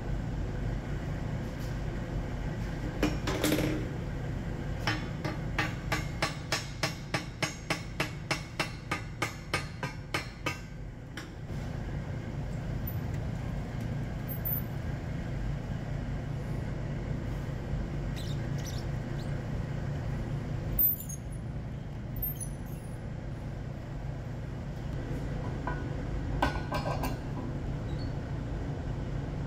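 A steady low machine hum from the submerged-arc welding setup. Over it comes a run of sharp, evenly spaced metallic taps, about three a second for some five seconds, and near the end a clink of a steel screw clamp being handled on the plate.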